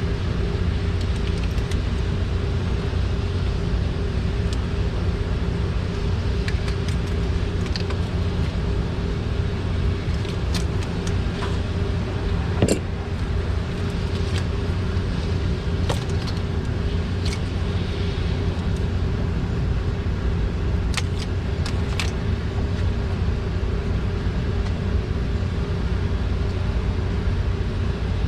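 Steady low machinery hum, even throughout, with scattered light clicks and clinks of tools and engine parts being handled.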